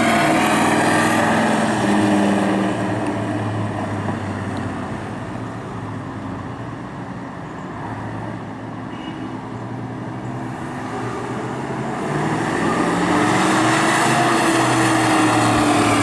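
1968 Dodge Coronet R/T's 440 Magnum V8 running as the car drives past at low speed. The engine grows fainter in the middle as the car moves away, then louder again as it comes back, its note rising and then falling near the end with the throttle.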